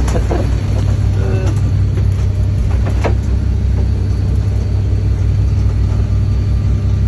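Boat engine running steadily, a constant low rumble, with a short knock about three seconds in.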